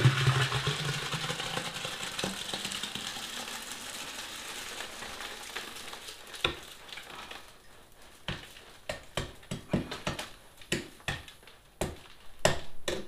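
Wet concrete sliding out of a tipped wheelbarrow into a post hole: a gritty hiss that is loudest at the start and fades over the first few seconds. Then a string of sharp knocks and scrapes as the last of the mix is worked out of the tray.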